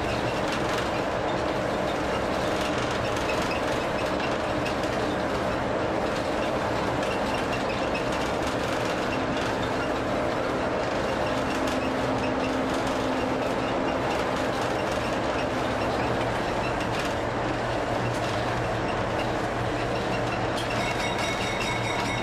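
Diesel locomotive running steadily as the train rolls along the track, heard from the cab, with the wheels clicking over rail joints. A high, thin steady tone joins near the end.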